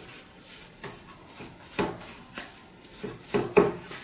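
Silicone spatula stirring crumbly flour-and-oil dough in a stainless steel bowl: repeated scraping strokes about twice a second, with a few louder knocks against the bowl.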